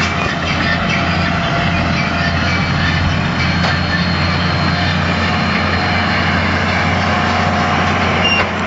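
Claas Ares 816 tractor and Claas Variant 180 RotoCut round baler running steadily while baling straw: a constant engine drone under the noise of the baler working.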